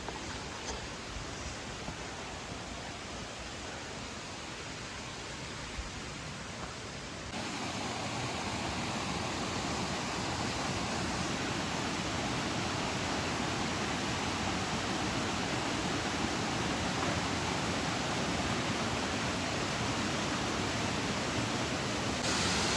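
Small stream-fed waterfall: water falling and splashing in a steady rush. The flow is modest, not at full monsoon pressure. It gets louder about seven seconds in and again near the end.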